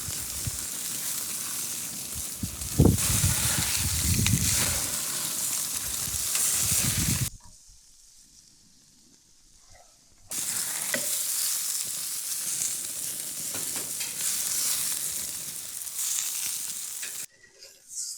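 Skirt steak sizzling over live fire on the V-groove steel grates of a Prokan Infinity Argentine grill, a dense crackling hiss. It comes in two stretches with a few much quieter seconds between them, and there is one sharp knock about three seconds in.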